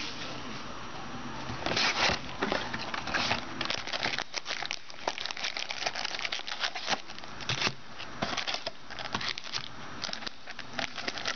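Cardboard trading-card box being opened and handled by hand, with the paper checklist and the wrapped card packs inside crinkling and rustling: an irregular run of crackles and light taps.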